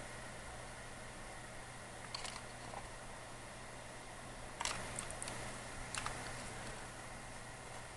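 Faint handling noise: a few soft clicks and rustles, a second or two apart, over a steady low hum.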